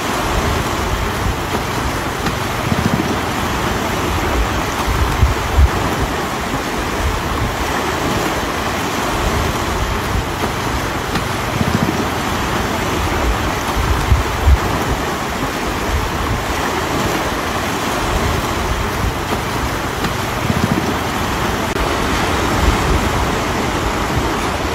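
Swollen, fast-flowing muddy river rushing steadily, with a few louder low thumps now and then.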